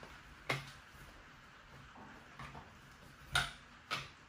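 Screwdriver and small parts clicking and tapping against a Tamiya TL01's plastic RC car chassis as the motor is unscrewed and taken out: a sharp click about half a second in and two more near the end, with fainter taps between.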